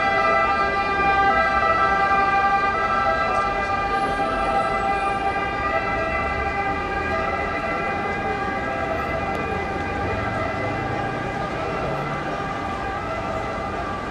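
A steady held tone with many overtones that slowly fades, over a background of street noise.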